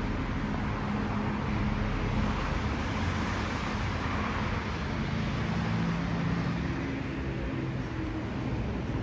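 Steady road traffic noise: the continuous rumble and tyre hiss of cars and other vehicles on a busy multi-lane city road below, with a low engine hum running under it.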